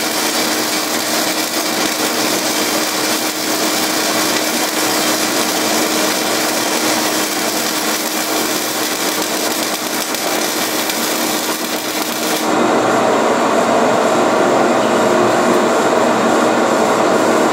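Henlex HV102 120 V vacuum turbine of a welding smoke extractor running steadily, a loud rushing hiss with a steady hum under it. About twelve seconds in the sound changes: the sharp high hiss drops away and a slightly louder, lower rush carries on.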